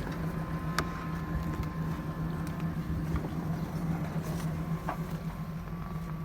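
Hyundai Santa Fe V6 engine idling steadily.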